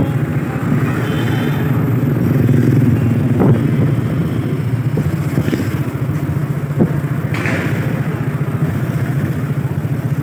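Motorcycle engine running steadily while riding along a street, with a couple of short knocks and a brief hiss in the second half.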